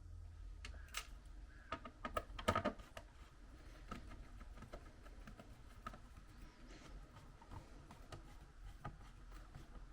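Light irregular clicks and ticks of a screwdriver driving screws into a laptop's plastic bottom panel, with a short cluster of louder clicks about two and a half seconds in.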